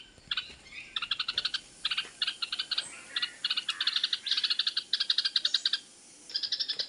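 A bird's alarm calls: runs of rapid chattering notes, each run about half a second long, repeated over and over with a short break about six seconds in. A mother bird scolding an intruder near her nest of newly hatched chicks.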